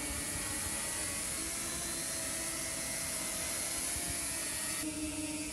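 Small multirotor drone hovering, its propellers giving a steady multi-toned whine, over the even rushing noise of a large open fire burning in a fire pan.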